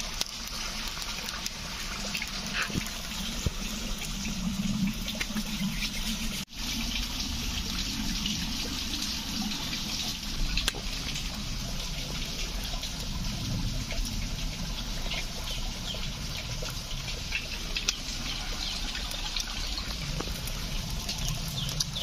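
Flowing river water, a steady rushing hiss, with occasional faint crackles from a small twig campfire.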